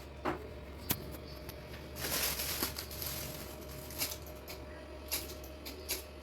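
Handling noises from hands-on repair work: a few sharp clicks and light knocks, with a stretch of rustling about two seconds in, over a steady low hum.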